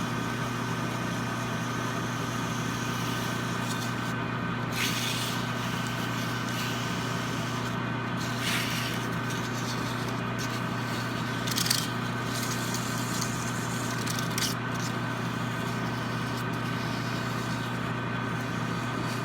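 Metal lathe running steadily at low speed with a constant motor hum. A few short hissy scrapes, the loudest a little before halfway, come from sandpaper rubbed against the spinning steel ball handle to polish it.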